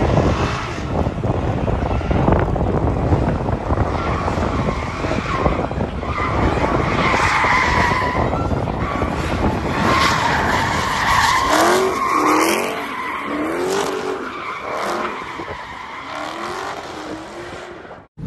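Dodge Charger doing donuts: the engine runs hard and the tyres screech as they spin on the pavement. In the second half the revs climb and drop again and again.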